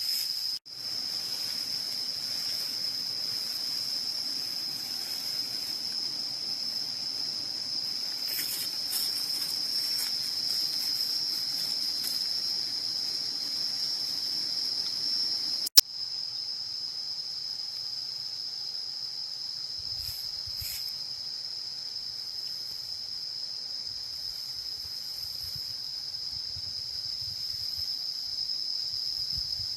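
Steady, shrill insect chorus, one unbroken high trill. It drops out briefly about half a second in and again at about the middle, where a sharp click sounds.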